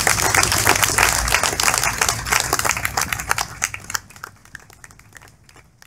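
Audience applauding, a dense patter of hand claps that fades out from about three seconds in.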